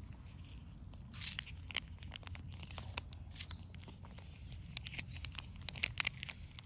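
A cat chewing cat food: a run of irregular, crisp clicks and crunches.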